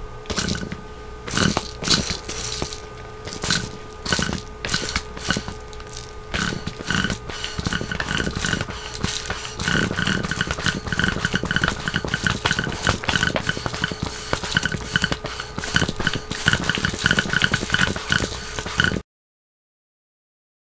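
Homemade airsoft gun's balloon air pump being worked rapidly back and forth, each stroke a sharp puff of air with a short squeak, firing pellets on both the pull and the push. The strokes come unevenly at first, then faster and steadier, and cut off suddenly near the end.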